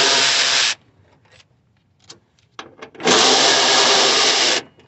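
Power ratchet running in two bursts, backing out two 10 mm bolts. The first burst lasts under a second and the second about a second and a half, starting three seconds in. A few light clicks of tool and metal come in between.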